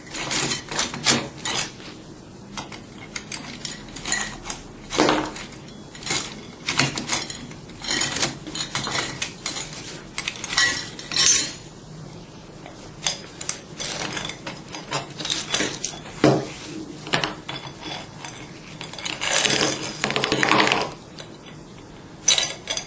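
Irregular metallic clinks, clanks and rattles as the top cover of an oil-free vacuum pump is taken off and its metal parts handled, with a longer scraping rattle near the end.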